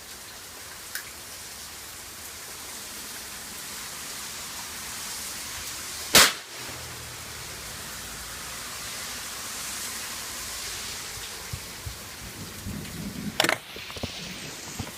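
Steady heavy rain, broken about six seconds in by the sharp bang of a firecracker going off inside a homemade tin-foil-and-BB airsoft grenade. A few small pops and a second, weaker sharp bang come near the end.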